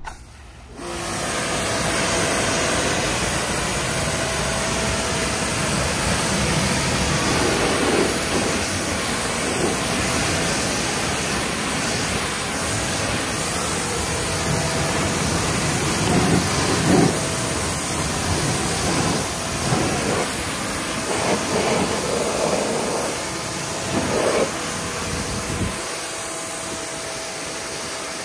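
Pressure washer jet of water hissing steadily as it sprays against a car's side panel and wheel, with a faint steady tone under the hiss. Near the end the low rumble drops away while the spray carries on.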